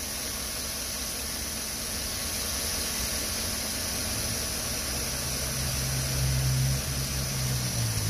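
Chevrolet V8 engine idling steadily with a low hum that grows a little stronger about halfway through. It is running with a number one cylinder misfire, trouble code P0301, which gives it a little bit of a shake.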